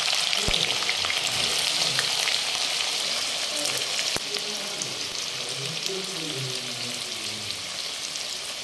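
Sliced onions sizzling in hot oil in an iron karahi: a loud, steady frying hiss, loudest at the start and slowly easing as the onions settle into the oil.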